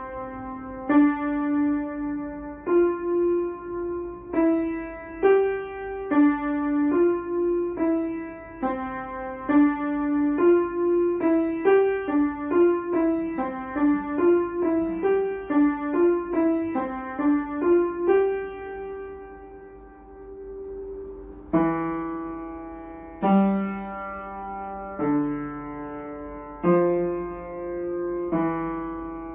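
Upright piano playing an elementary technique exercise: a plain melodic line in the middle register, at first about two notes a second and then quicker. Near the end a long note is held, and after it lower notes come in under the melody.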